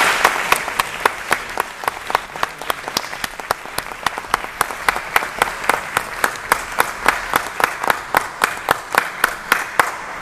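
Audience applauding, with one pair of hands clapping close by at a steady beat of about three or four claps a second. The applause stops suddenly at the end.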